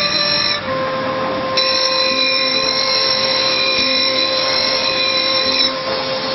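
Grinding wheel running against the teeth of a metal toothed cutter as it sharpens it, a steady whine over a grinding hiss.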